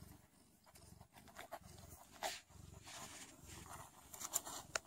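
Sphynx mother cat purring softly in a steady on-off rhythm while her newborn kittens nurse, with small wet suckling clicks and smacks, one about two seconds in and a few near the end.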